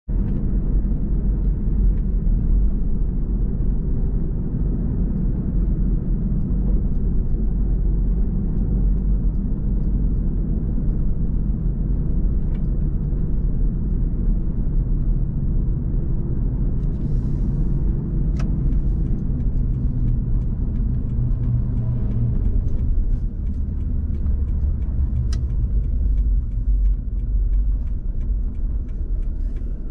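Steady low rumble of a car driving on city streets, heard from inside the cabin: engine and tyre noise, with a few faint ticks in the second half.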